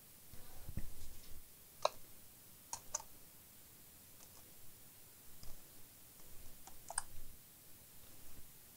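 Samsung laptop keyboard being pried out with a thin tool: scattered light plastic clicks and taps as its retaining clips are worked loose.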